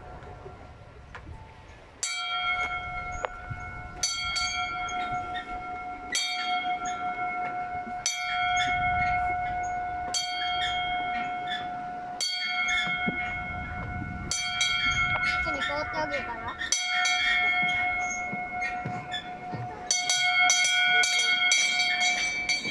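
A small hanging bell rung by pulling its rope. The clapper strikes about every two seconds and each strike rings on with a clear, steady tone, with a quicker run of strikes near the end.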